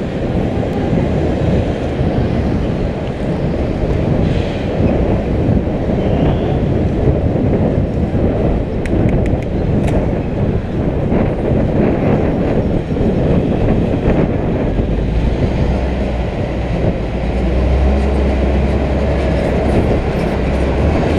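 Wind rushing over a helmet-mounted camera's microphone while cycling, mixed with road and traffic noise. From about fifteen seconds in, a heavier low engine hum grows as a large truck runs just ahead.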